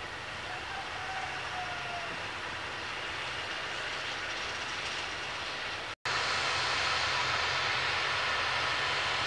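Aircraft engine noise, a steady continuous drone. It drops out for an instant about six seconds in and comes back slightly louder.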